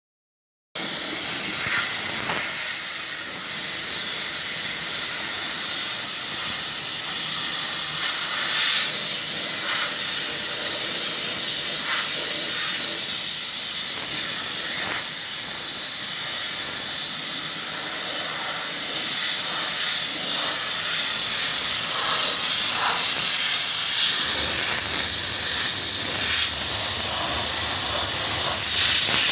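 High-pressure cleaning nozzle spraying in a steady loud hiss, starting sharply about a second in.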